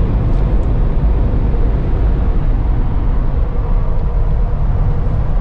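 Jeep driving: a steady, loud low rumble of engine and road noise, with a faint steady whine above it.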